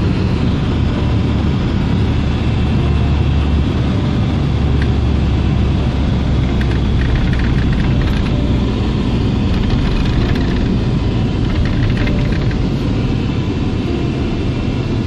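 Strong storm wind buffeting the microphone: a loud, steady low rumble.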